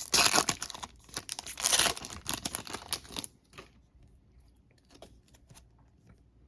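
A trading card pack's wrapper being torn open and crinkled, loud and rustling for about three seconds, followed by faint light clicks as it is handled.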